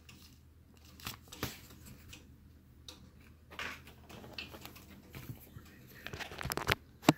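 Handling sounds: a plastic sleeve of coins rustling and tapping as it is set down on a paper envelope, with scattered soft clicks and one sharp click near the end.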